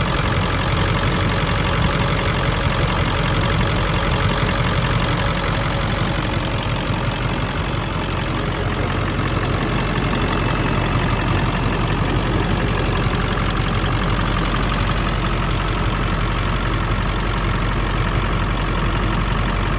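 2000 Ford F-550 Super Duty truck engine idling steadily, heard up close with the hood open.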